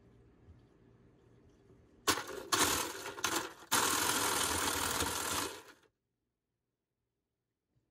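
Little Snowie 2 shaved ice machine running, its high-speed motor driving a stainless steel blade through ice cubes. The sound starts about two seconds in, uneven with brief breaks at first, then runs steadily before stopping about six seconds in.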